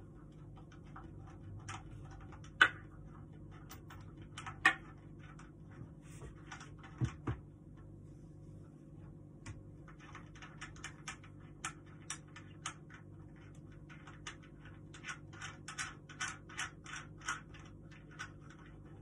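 Hand assembly of a small wooden table: two sharp knocks about two and a half and four and a half seconds in, then a run of small clicks and taps, several a second in the later part, as metal screws and fittings are handled and turned into the wooden board.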